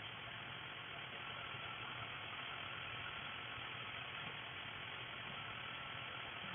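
Dental cleaning equipment running steadily in the patient's mouth: an even mechanical hum with hiss that does not change.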